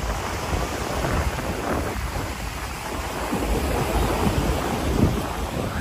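Wind buffeting the microphone in uneven low rumbles over a steady wash of ocean surf.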